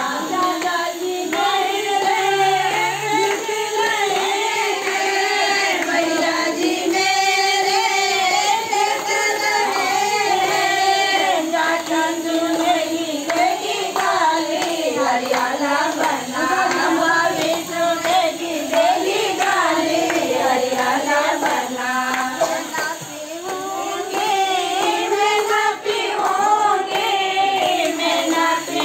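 A group of women singing a traditional wedding folk song together in unison, one steady drawn-out melody that rises and falls without a break.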